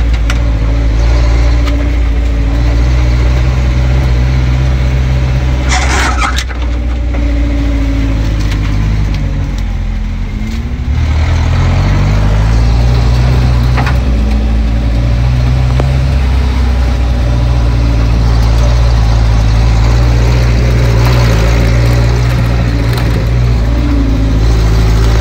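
Off-road 4x4's engine running under load, heard from inside the cab as it crawls along a rutted dirt track, its note stepping up and down with the throttle and dropping briefly about ten seconds in before picking up again. A short rush of noise about six seconds in.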